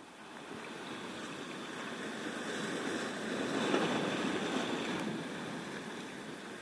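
Sea waves washing against shore rocks close by, swelling to a peak about four seconds in and then easing.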